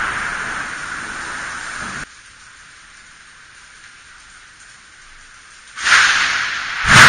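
Thunder rumbling and fading away, cutting off abruptly about two seconds in. Near the end come two sudden close thunderclaps about a second apart, the second louder, each followed by rumbling.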